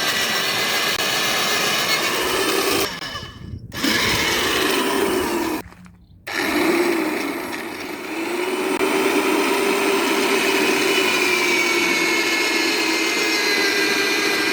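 Heavy-duty drill machine boring into soil with an auger bit, its motor running continuously with the pitch sagging and recovering under load. The sound cuts out briefly twice, about three and six seconds in.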